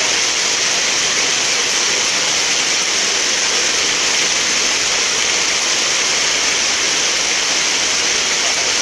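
Heavy rain falling in a steady, loud hiss, with no let-up.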